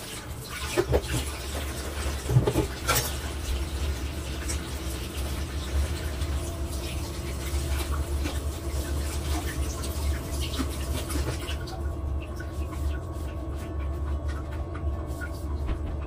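Groceries and plastic containers being handled: scattered light knocks and rustles, busiest in the first few seconds, over a steady low hum.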